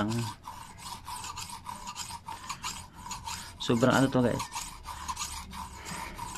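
Steel kitchen knife blade rasping in repeated back-and-forth strokes across the bottom rim of an upturned ceramic mug, sharpened with toothpaste as the abrasive.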